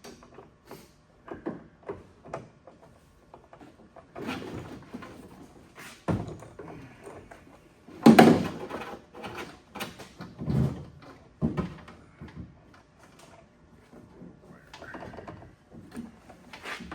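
Intermittent knocks, clanks and scrapes of hand tools and loose parts being handled while a car's interior is taken apart. The loudest knock comes about eight seconds in.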